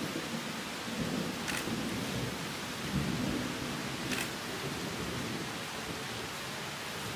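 Steady rushing background noise with an uneven low rumble, and two short sharp clicks, one about a second and a half in and one about four seconds in.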